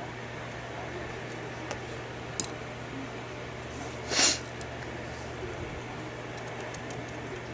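Faint, scattered clicks of a lock pick and tension tool working the pins of a Dom 6-pin lock, over a steady low hum. About four seconds in there is a single louder short hiss.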